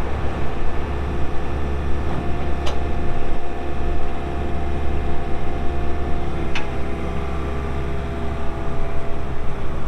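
Case CX80 excavator's pre-emissions Isuzu diesel engine running steadily under hydraulic work, with two sharp metallic clanks about three and six and a half seconds in.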